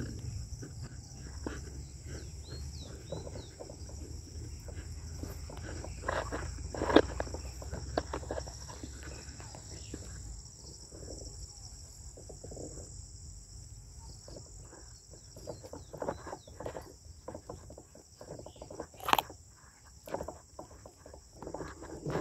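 Crickets and other insects shrilling steadily, with footsteps and rustling as someone walks over tilled soil and grass. A low rumble stops about halfway, and a few sharper knocks stand out, the loudest a little before the end.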